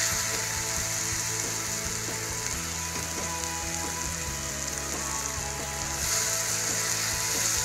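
Ground masala paste sizzling in hot oil in a kadhai as it is stirred with a spatula, a steady frying hiss. It is being fried until the oil separates from the paste.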